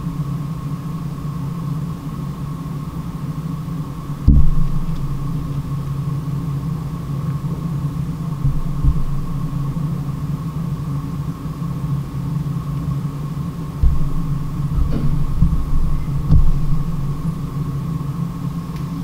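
A steady low hum, with a few deep thumps coming at irregular intervals.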